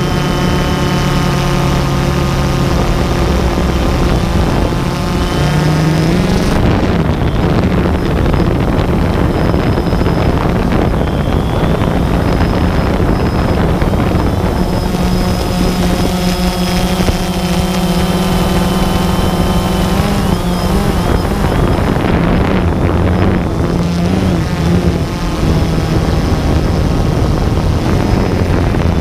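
Multirotor drone's motors and propellers whining steadily, heard from its own on-board camera, the pitch stepping up about six seconds in and shifting again later as it changes speed, over a rush of wind on the microphone.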